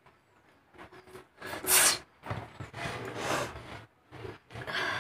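A person's nose and breath sounds: one sharp, loud nasal burst a little under two seconds in, then a longer stretch of rough sniffing and breathing, and two shorter bursts near the end.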